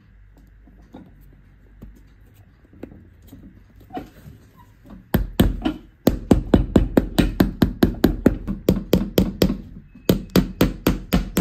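A cobbler's hammer striking the boot's leather heel in quick, regular blows, about four a second, nailing the heel on. The hammering starts about five seconds in after a few softer taps and knocks, and breaks off briefly twice.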